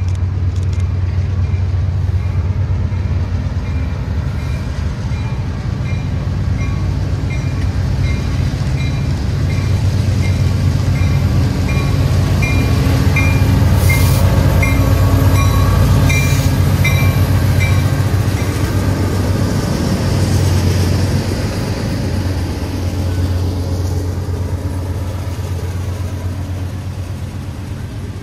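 A train running past, its low rumble building to a peak about halfway through and then easing off. A bell rings steadily about twice a second over the first two-thirds and then stops.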